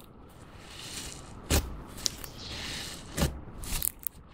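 Clear slime being pressed and dragged through fine glitter nail powder: a soft gritty rustle with sharp sticky clicks from the slime, two loud ones about a second and a half in and just past three seconds, and a few smaller ones near the end.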